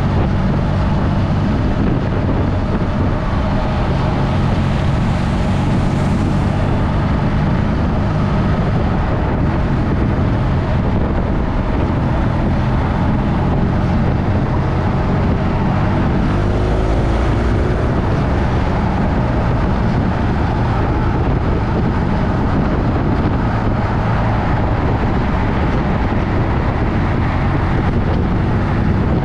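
BMW motorcycle's engine running steadily while riding, with wind noise on the microphone.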